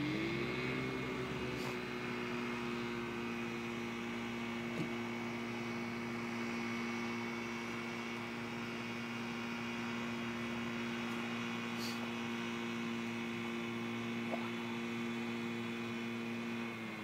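Distant Rotax 503 two-stroke twin engine of a Thruster T300 microlight, throttled up for take-off. Its pitch rises over about the first second, then holds a steady drone at full power.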